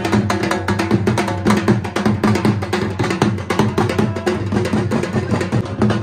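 Dhol, a double-headed barrel drum, beaten live in a fast, driving rhythm of rapid strokes.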